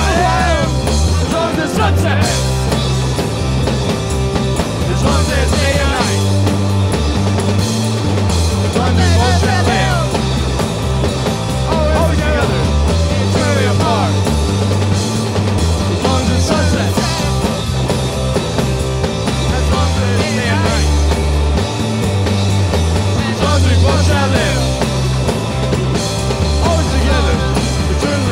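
Rock band playing a song live, with drum kit and bass under wavering lead lines, loud and continuous.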